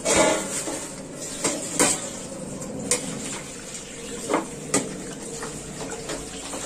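Stainless steel plates and bowls clanking against each other in irregular knocks as they are shifted around at a kitchen sink, with a tap running underneath.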